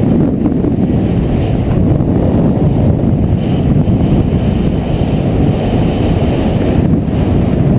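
Wind buffeting the microphone of a camera moving fast down a ski slope: a loud, steady low rumble, with a faint higher hiss from about three to seven seconds in.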